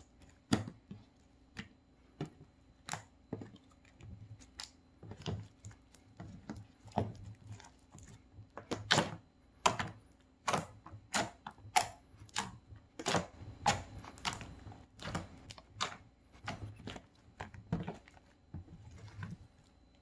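Blue slime being pressed and kneaded by fingers, giving irregular sharp clicks and pops, a few a second.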